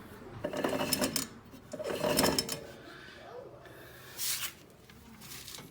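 Metal parts of a car's wheel hub being worked by hand, rough rubbing and clunks in short irregular bursts, loudest about a second and about two seconds in, as the hub with a bad wheel bearing is taken apart.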